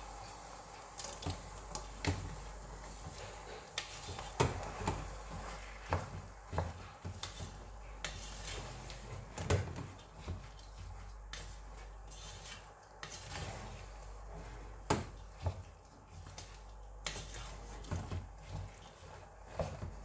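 Wooden spoon stirring rice and vegetables in a stainless steel pot, with irregular knocks and scrapes of the spoon against the pot's side, about one or two a second.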